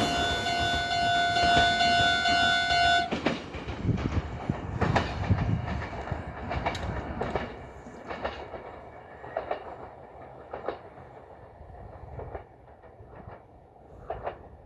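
Local electric train running away past a level crossing, its wheels clacking over the rail joints in a run of clicks that fades steadily away. A steady multi-pitched tone sounds over it and cuts off suddenly about three seconds in.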